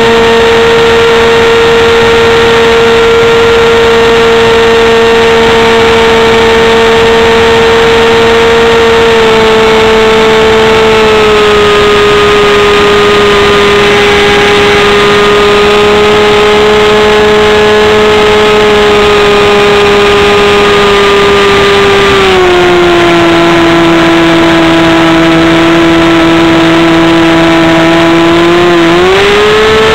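RC P-51 Mustang model's motor and propeller heard up close from a camera mounted on the plane, a loud steady whine. The pitch steps down about a third of the way in and drops again about three quarters of the way through as the throttle is eased, then rises quickly back up near the end.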